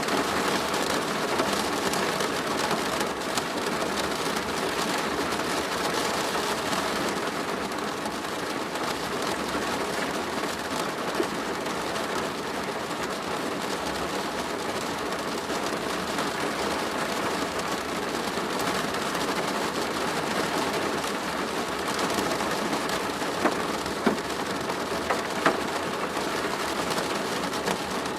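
Steady rain drumming on a plastic roof, a dense patter of drops with a few louder single drip taps near the end.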